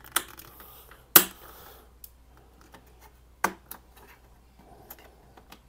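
Sharp plastic clicks and taps from handling a small precision screwdriver and the plastic router case, three louder clicks with the loudest about a second in, followed by a brief scuffing rustle, and faint small ticks between.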